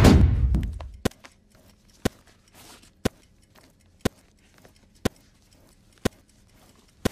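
Music fades out over the first second, then a clock ticks steadily, once a second, seven ticks in all.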